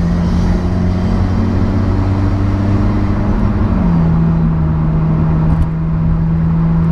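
Alfa Romeo 4C's turbocharged 1.75-litre four-cylinder running under way, a steady engine note that shifts slightly in pitch about halfway through.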